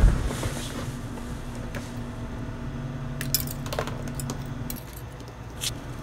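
Side cutters snipping a plastic Tamiya Mini 4WD MS chassis off its sprue, with a sharp click at the start, then a few scattered clicks and light clatter of the plastic parts being handled and set down. A steady low hum runs underneath until near the end.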